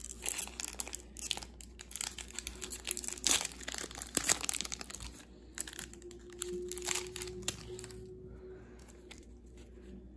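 Foil wrapper of a Pokémon TCG booster pack crinkling and tearing as it is opened by hand. The crackles come thick for the first five seconds or so and then thin out.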